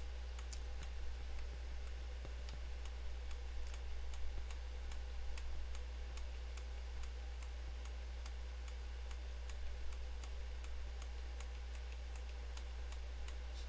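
Computer keyboard's arrow key pressed over and over, a string of light clicks a few a second, over a steady low electrical hum.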